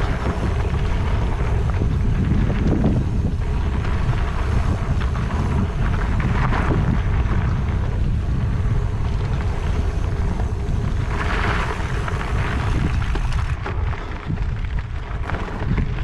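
Wind buffeting the camera microphone while riding a mountain bike down a trail, with a steady rumble of the bike and tyres over the ground.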